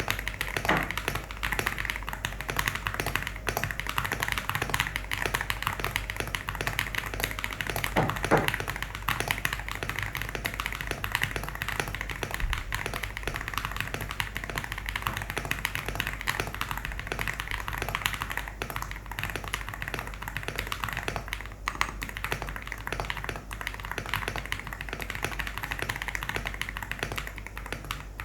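Custom 65% mechanical keyboard being typed on quickly and continuously, a dense stream of keystrokes with a creamy sound.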